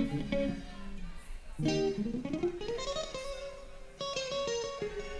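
Electric guitar playing a melodic instrumental passage of rising runs. Fresh phrases are struck about a second and a half in and again near four seconds.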